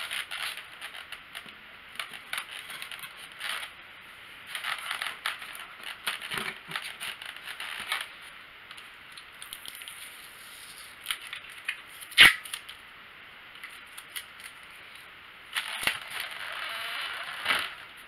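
Styrofoam packing insert scraping and crunching in short bursts as plastic parts are worked out of it, with one sharp click about twelve seconds in.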